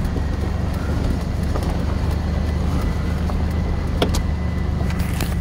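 A 2000 GMC Sonoma pickup's engine running steadily as the truck drives slowly over rough farm ground, heard from inside the cab. A couple of short knocks come near the end.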